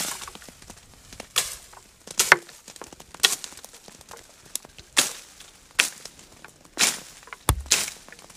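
Wooden poles beating olive tree branches to knock the olives down: irregular sharp strikes about once a second, each with a short rustling tail.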